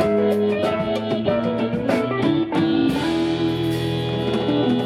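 Live blues-rock band playing an instrumental passage: electric guitar over bass and drums, with notes held from about three seconds in.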